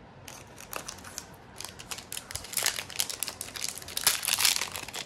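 Foil booster pack wrapper crinkling as it is handled and torn open: sparse crackles at first, then denser and louder rustling through the second half.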